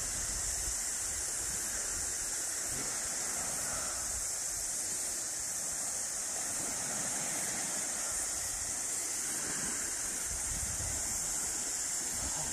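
Steady beach ambience: small waves washing onto the shore, with wind gusting on the microphone, the gusts heaviest near the end.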